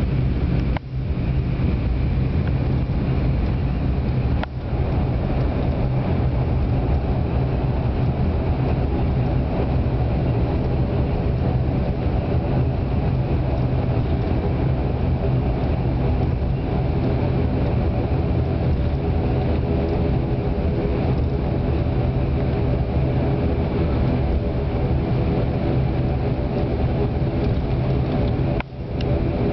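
ATR 72-500's Pratt & Whitney PW127 turboprop engines and propellers droning steadily, heard from inside the passenger cabin. The sound dips out briefly three times: about a second in, around four and a half seconds in, and near the end.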